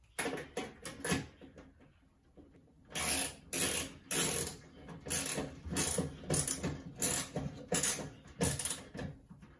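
Socket ratchet wrench clicking in repeated short strokes, about two a second, as it tightens the bolt that mounts a new ballast in a fluorescent light fixture's metal housing. A few lighter clicks come in the first second before the steady ratcheting starts.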